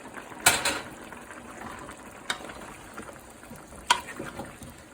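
Potato pieces going into a pot of simmering curry and being stirred in: three sharp clatters, about half a second, two seconds and four seconds in, the last with a brief metallic ring, over a steady low bubbling.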